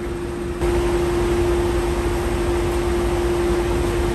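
Steady drone of shop machinery: an even rushing of air with a constant hum under it, stepping up louder about half a second in.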